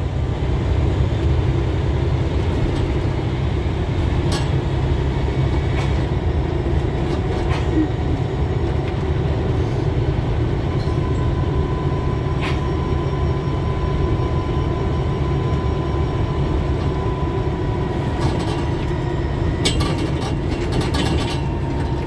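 Single-deck bus under way, heard from inside the passenger saloon: a steady low rumble of engine and road noise. A faint steady whine comes in about halfway, and a few short clicks and rattles sound, several of them near the end.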